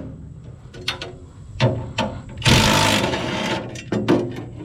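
Hand tools working on metal engine parts while an old intake fitting is taken off a diesel engine. Scattered metallic clicks and knocks, with a louder rasping clatter of about a second near the middle.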